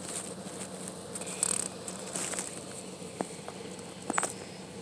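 Grass and weeds rustling close to the phone as it moves low through them, with a few soft clicks near the end.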